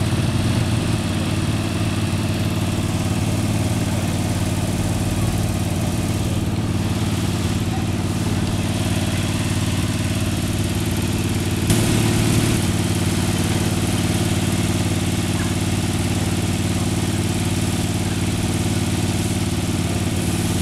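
Small motorised sidewalk sweeper's engine running steadily close by, with a brief louder noise about halfway through.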